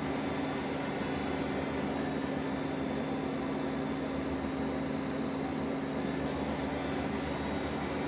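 Mori Seiki NLX-2500 CNC lathe running under power with a steady, even hum and a constant tone, no cutting or tool changes heard.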